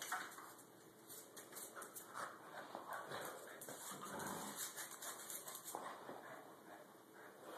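A small dog scampering about at play, with faint scuffling and light clicks of its claws on a tile floor.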